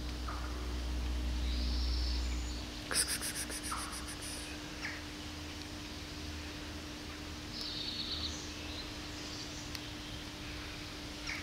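Outdoor street ambience: a steady low hum under a faint rumble that fades out after about two and a half seconds, with a few short high bird chirps and a quick rattle of clicks about three seconds in.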